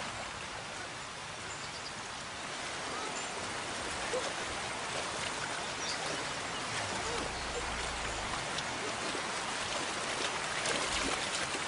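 Steady watery hiss like a running stream, with faint scattered ticks and a few short chirps over it; it grows slightly louder about two seconds in.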